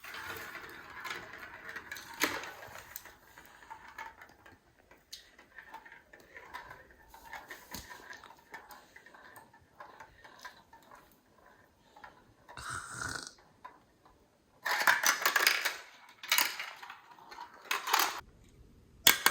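Marbles and plastic marble-run pieces clicking and rattling: a quiet, irregular rattle at first, then louder clattering bursts in the last few seconds.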